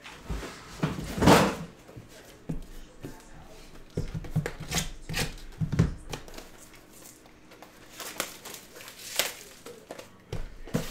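Handling noises at a desk: scattered light clicks and knocks with some rustling as card-break supplies are picked up and moved, and one louder brief rustle about a second in.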